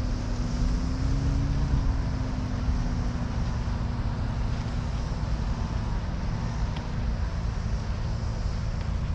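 Steady rolling rumble of wheels on pavement, with a faint hum drifting slightly in pitch.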